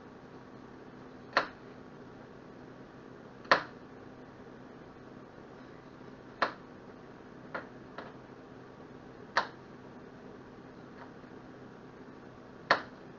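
Kitchen knife slicing jalapeño peppers, the blade knocking sharply on the cutting board seven times at irregular intervals, one to three seconds apart. A faint steady hum runs underneath.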